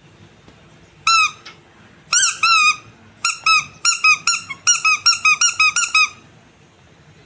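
Rubber squeaky animal toy squeezed repeatedly, each squeeze giving a short high squeak that dips slightly in pitch. One squeak comes about a second in, two more follow, then a quick run of a dozen or so squeaks that stops about six seconds in.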